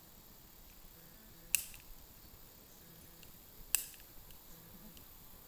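Two sharp snapping clicks about two seconds apart, against a faint quiet background.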